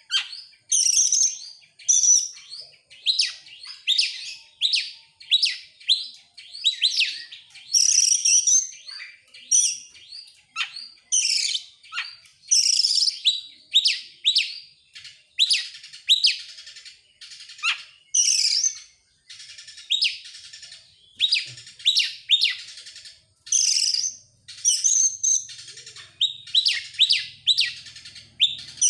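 Oriental magpie-robin (kacer) in full song: a rapid, unbroken run of short, high, sharp notes and phrases.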